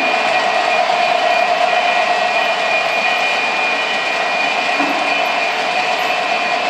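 O-gauge model diesel locomotives and freight cars running on three-rail track: a steady rolling rumble of wheels on rail with a steady motor whine over it.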